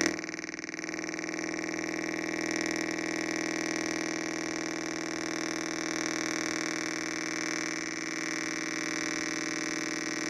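A loudspeaker plays a steady, buzzy electronic drone with many overtones, produced by a homemade transistor antenna circuit wired into the audio. The drone swells slightly a couple of seconds in, and there is a short loud blip at the very start.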